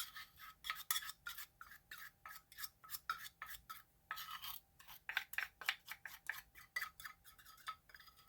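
Spoon scraping sticky molasses out of a measuring cup, in quick repeated strokes, several a second.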